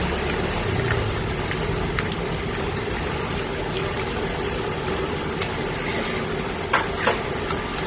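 Chicken pieces cooking in a nonstick pan as they are stirred with a silicone spatula: an even sizzling hiss over a steady low hum. Two sharp clicks of the spatula against the pan come about seven seconds in.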